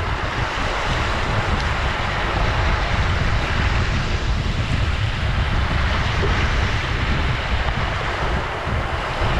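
Ocean surf: a continuous wash of breaking waves with a deep, steady rumble underneath, swelling slightly midway.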